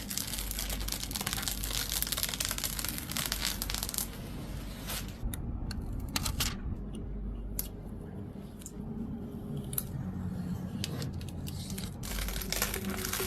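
Packaging being torn open and crinkled, with scattered short clicks and knocks of handling in between, then more tearing and rustling near the end.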